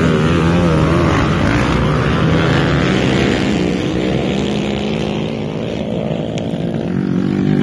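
Several motocross dirt bikes running on a dirt track, their engines revving up and down and overlapping as the riders pass.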